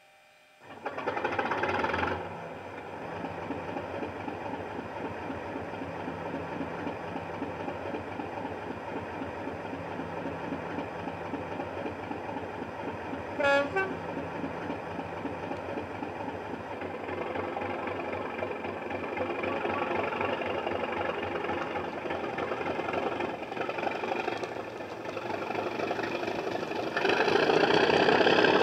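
Sound-fitted model Class 37's recorded English Electric diesel engine starting up with a loud burst about a second in, then idling with a steady beat. A brief horn toot sounds about halfway through, and the engine notches up and builds louder near the end as the locomotive pulls away, heard through a small on-board speaker.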